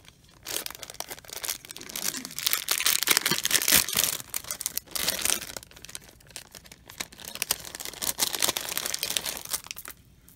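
Thin clear plastic zip-lock bag crinkling and rustling as it is handled and a strand of beads is pulled out of it, loudest between about two and four seconds in and fading out near the end.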